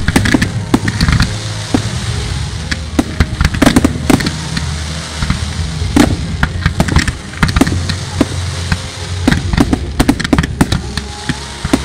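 Fireworks display: aerial shells and rockets going off in a dense, irregular run of sharp bangs and crackles, several reports a second, over a continuous low rumble.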